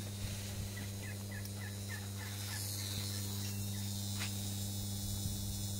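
Electric water pump humming steadily as it pumps water out onto the garden. About a second in, a bird gives a quick run of short chirps.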